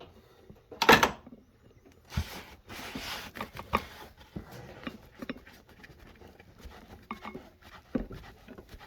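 Hands working under the hood loosening a nut at the base of a high pressure fuel pump. A sharp clack about a second in, then rustling and scattered light clicks as the nut is turned off by hand.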